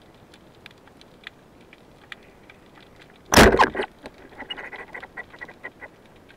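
A 70 cm wooden double-band arbalete speargun fired underwater: one loud, sharp release of the bands and shaft a little past three seconds in, lasting about half a second, followed by a second and a half of quick clicking rattles. Faint scattered underwater clicks run underneath.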